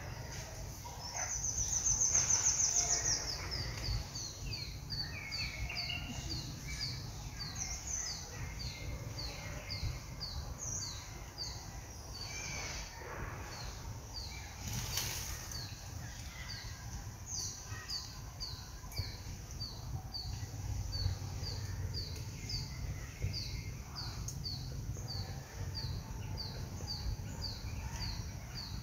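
Forest birdsong: a loud, rapid high trill in the first few seconds, then a short, high falling chirp repeated about twice a second. A brief rustling noise comes about halfway, over a low rumble.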